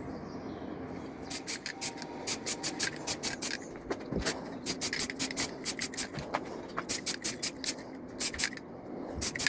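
Red filler primer being sprayed onto model wagon bodies in rapid short bursts of hiss, several a second, starting about a second in.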